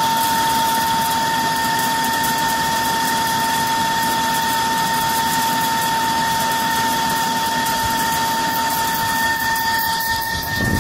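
Haas TL-3B CNC lathe running: a steady whine over an even mechanical hum, with a little more low rumble near the end.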